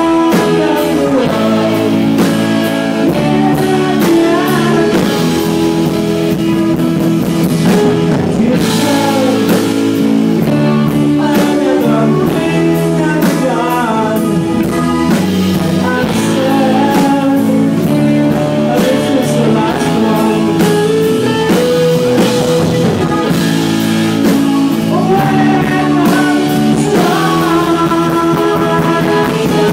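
Rock band playing live, with electric guitars, drums and a lead vocal, in a rough audience recording.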